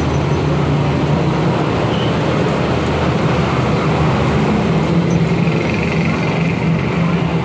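Steady road-traffic noise, with the low hum of a vehicle engine running close by.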